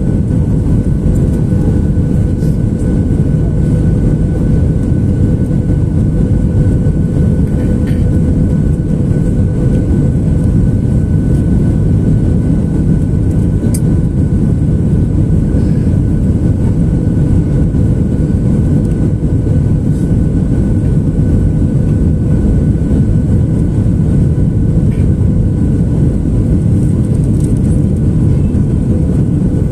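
Jet airliner cabin noise on final approach: a steady drone of engines and airflow, with faint steady tones riding over it.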